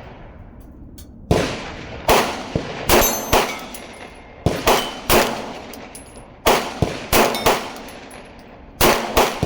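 A 9mm Glock 19X pistol fired in quick strings of three or four shots, about fourteen in all, with steel targets clanging and ringing from the hits.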